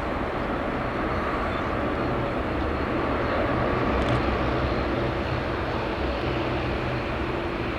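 Jet engine noise of a departing Boeing 777: a steady rumble that swells slightly midway.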